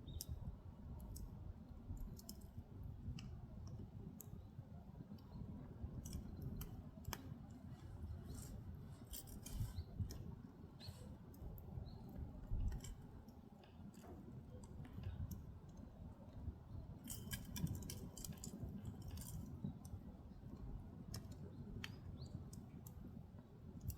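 Firewood burning in an agungi, a Korean traditional firebox: a steady low rumble of the fire with scattered crackles and pops, a few sharper ones now and then.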